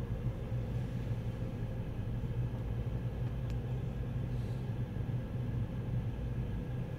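Car wash air dryers blowing behind the closed entrance door, heard from inside a waiting car as a steady low rumble.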